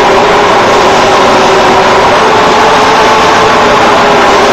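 Gray 550F CNC floor-type horizontal boring mill running, a loud steady machine hum with a whine held at one pitch.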